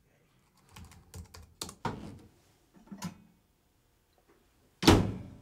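Computer keyboard typing in a few short bursts of keystrokes, then a single loud thunk near the end as a microwave oven door is handled.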